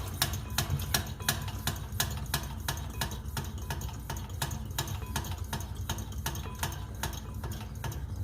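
Hand pump of a Coleman 530 G.I. pocket stove being worked to build pressure in the fuel tank, clicking evenly about three times a second.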